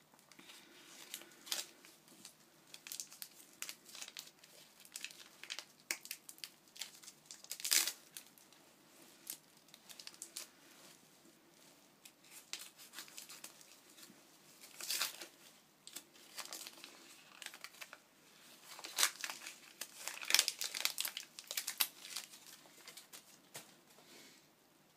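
Gift packaging being crinkled and torn open by hand, in irregular rustling bursts. The loudest rustles come about a third of the way in and again in the last third.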